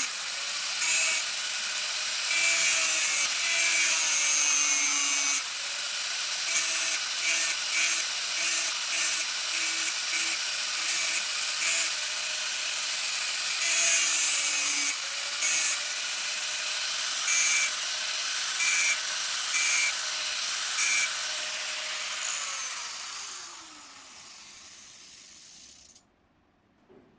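Electric power tool running at speed and working the piece, its noise swelling in short repeated surges as it bites. Near the end it is switched off and spins down, its pitch falling until it stops.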